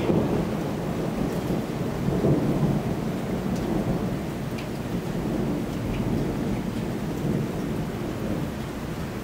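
Thunder rumbling on and off without a break, swelling about two seconds in, during a night thunderstorm.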